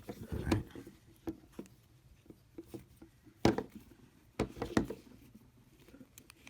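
Handling noise from a small plastic surge protector and its paper instruction sheet: scattered light clicks, taps and rustles, with two louder knocks, one about three and a half seconds in and one near five seconds.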